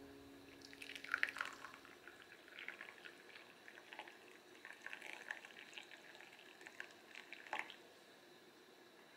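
Tea poured from a glass teapot into a glass cup: a thin stream trickling and splashing unevenly, stopping a little before the end.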